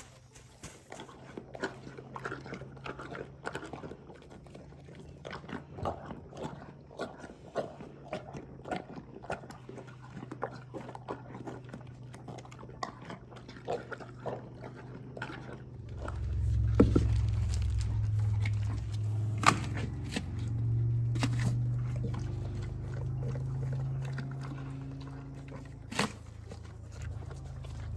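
A farm animal crunching and chewing a treat: rapid, irregular crunches. About halfway through a steady low rumble comes in, with a few sharp knocks over it.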